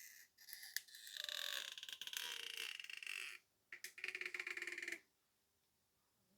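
Stretch-release adhesive strip being pulled out from under a tablet battery, giving a creaking rasp of rapid fine crackles for about three seconds, then a shorter second pull that stops suddenly.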